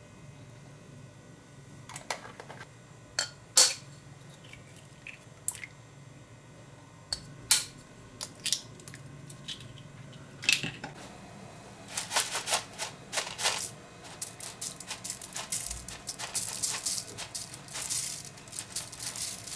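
Quail eggs cracked open with a knife blade over a bowl: sharp clicks and taps on the thin shells, scattered at first and growing denser in the second half. Rolled oats are poured into the bowl near the end.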